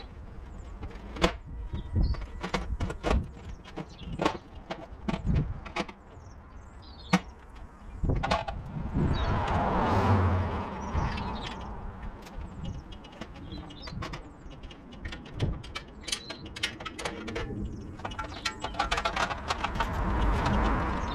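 Irregular clicks and knocks, with two spells of spray hiss about halfway through and near the end, lasting a few seconds each: a steam cleaner's lance working over roof tiles.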